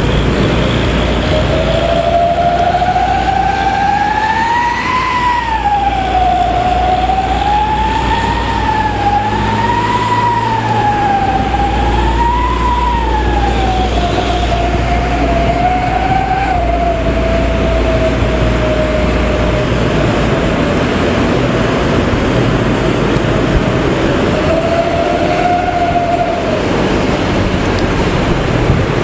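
A bus's modified 'serigala' (wolf) exhaust howling, a wailing tone that rises and falls in pitch several times, then settles lower and fades out. It comes back briefly near the end, over a steady low road and engine rumble.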